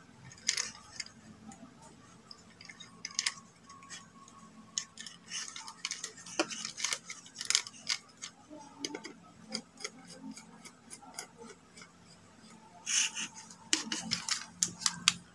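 Scattered small clicks and scrapes of copper wire and screw terminals being handled as a phase wire is fitted to a socket on a small electrical board, over a faint steady hum.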